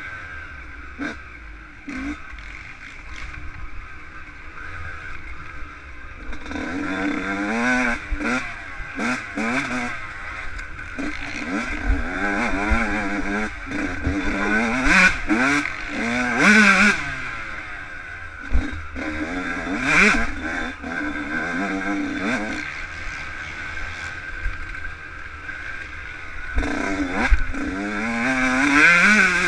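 Yamaha YZ125 two-stroke motocross bike ridden hard on a rough dirt trail, its engine revs climbing and dropping again and again as the throttle is opened and shut. It is quieter and mostly off the throttle for the first several seconds, then revs hard, with scattered knocks and rattles from the bumps.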